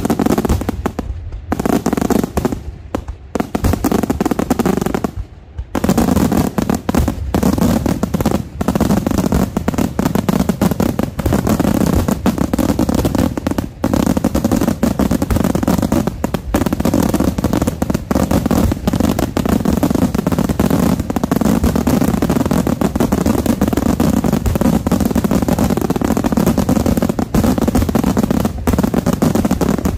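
Daytime aerial fireworks shells bursting overhead: separate loud bangs for the first few seconds, then from about six seconds in an unbroken, rapid barrage of explosions.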